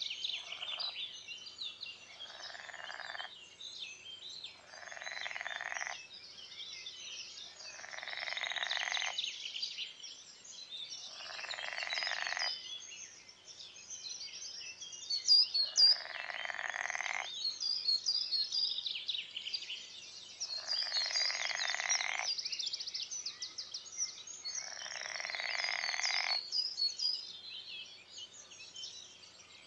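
Frog calling over and over, each pulsed call about a second long and coming every three to four seconds. Birds sing in high chirps throughout.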